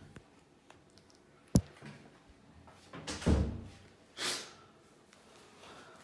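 A single sharp click about a second and a half in, then a dull thump and, a second later, a short breathy rush of noise.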